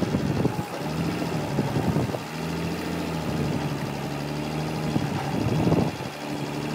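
Forklift engine running steadily, with louder, rougher surges about half a second in, around two seconds and between five and six seconds.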